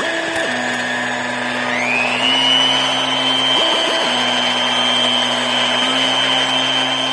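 Electric mixer motor running steadily. Its whine rises in pitch a little under two seconds in, then holds at the higher pitch.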